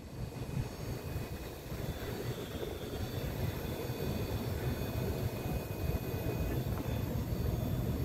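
Steady low rumble with a faint hum from a running rooftop air-conditioning unit, heard up close at the open compressor compartment; the scroll compressor itself has not started although it is being called.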